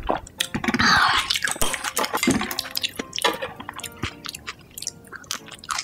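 Close-miked chewing and eating noises, with short sharp clicks and wet smacks, over faint background music.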